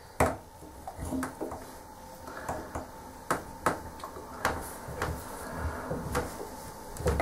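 Sharp metallic clicks and taps from handling a chrome bath tap head and working at it with a small tool, about a dozen irregular clicks, the loudest about a quarter second in.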